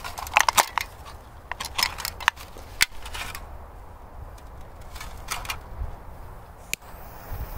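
Irregular sharp crinkles and clicks of a thin, torn drinks can being handled and squeezed as a firecracker is pushed into it, busiest in the first few seconds and then only a few scattered clicks.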